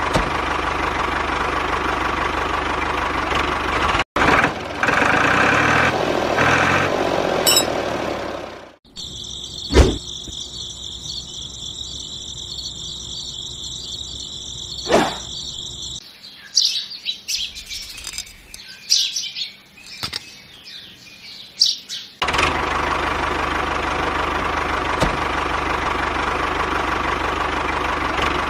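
Background music, giving way in the middle to a steady high whine with two sharp clicks, then several seconds of birds chirping, before the music comes back.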